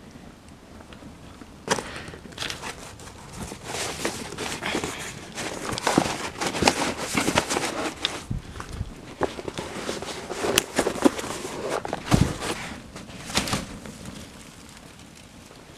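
Cardboard fire burning in a metal drum, crackling with irregular snaps and rustles that build up after the first couple of seconds and die down near the end.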